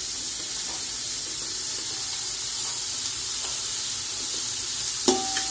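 Sliced onions frying in hot oil in a pot, a steady sizzle while they cook toward transparent. About five seconds in, a sharp metallic clank with a brief ringing tone.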